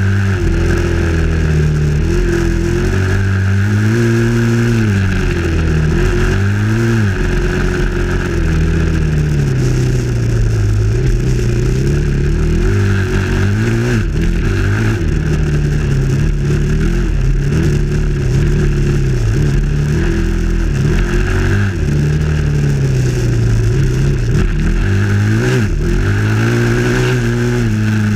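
Dirt bike engine, heard close up from the rider's helmet camera, rising and falling in pitch over and over as the throttle is opened and closed and the bike shifts through its gears.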